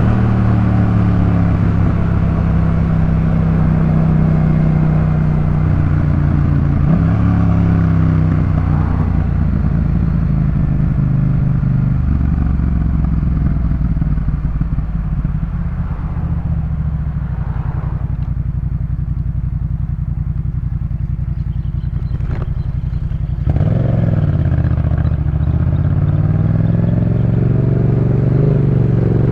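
Yamaha MT-07's parallel-twin engine running through a Jeskap K4 full aftermarket exhaust, its note changing pitch in steps. It drops to a quieter, low note for a few seconds past the middle, then picks up sharply about 23 seconds in and rises.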